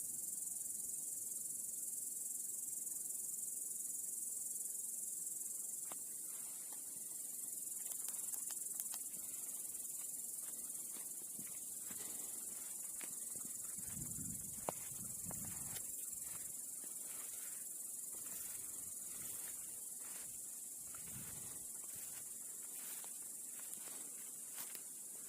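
Crickets chirring steadily in a high, continuous hiss. Scattered sharp clicks and rustles join in from about six seconds in, with a few low thumps near the middle.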